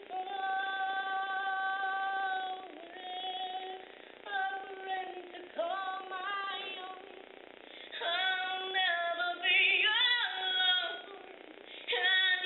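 A woman singing solo, with no accompaniment to be heard: a long held note at the start, then shorter phrases with slides between notes, and a wavering note about ten seconds in.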